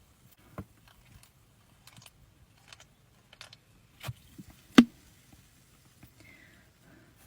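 Scattered soft swallowing clicks while gulping carbonated soda, with one loud sharp gulp about five seconds in.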